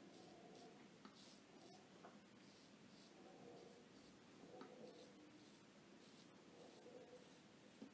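Faint, short scraping strokes of a Cichy Custom Knives 15/16 straight razor cutting stubble through shaving lather on the neck, several strokes a second.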